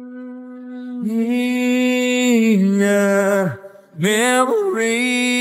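Isolated male rock lead vocal, separated by AI from the full mix, singing long held notes with no instruments. The voice swells up about a second in and breaks off briefly past the middle. It then slides up and holds a note again.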